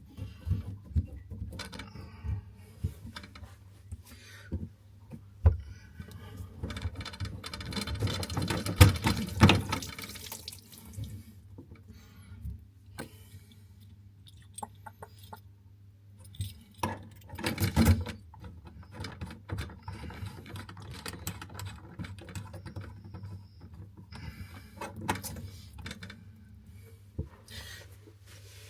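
Plumbing work at a bathroom basin: scattered knocks and clicks of tools and fittings being handled. There is a rush of water for a few seconds about a third of the way in, and another short loud burst a little past the middle.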